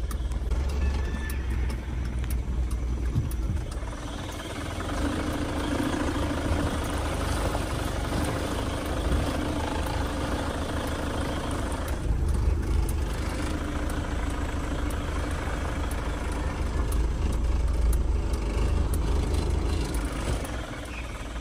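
Car engine running and tyre noise, heard from inside the cabin while driving slowly over rough, rocky ground. A steady low rumble throughout.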